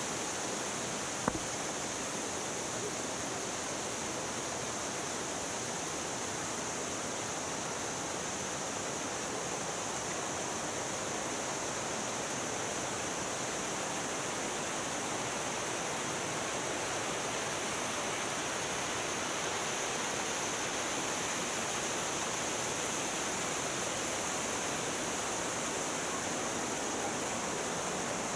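Steady rushing of a canyon stream and its waterfall spilling into a rock pool, with a single short click about a second in.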